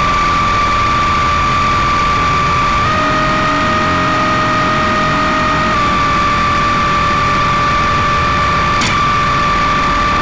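Improvised avant-garde electronic score: a dense, noisy drone with two steady high-pitched tones that shift slightly in pitch about three and six seconds in, and a single sharp click near the end.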